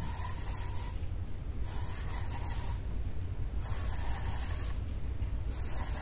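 Spinning reel cranked in short spells, about a second of whirring at a time, four times, as a hooked fish is reeled in. Under it run a steady high chirr of night insects and a constant low hum.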